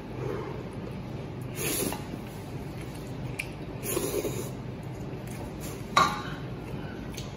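Instant noodles being slurped, twice, about two seconds apart, with a short sharp click about six seconds in.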